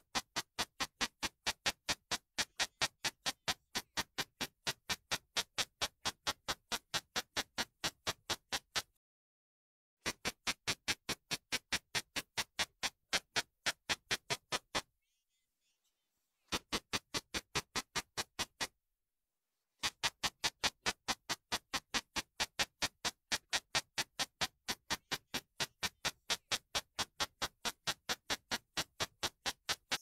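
Male Ishizuchi sasakirimodoki katydid (Shikokuconocephalopsis ishizuchiensis) singing its roughly 57 kHz ultrasonic song, made audible by a bat detector. It comes through as a fast, even train of sharp ticks, several a second, in long runs broken by pauses of about a second.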